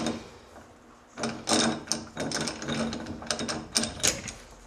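A 48RE transmission's overdrive sun gear, with its thrust plate and bearing, clicking and rattling against the metal parts around it as it is turned by hand and dropped into place in the overdrive unit. The quick run of metal clicks starts about a second in.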